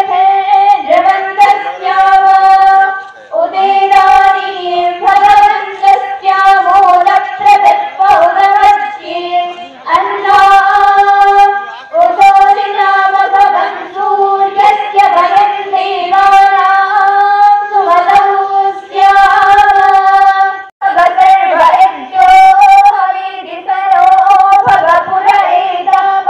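A high voice singing a devotional aarti melody in long held notes, with short breaks between phrases.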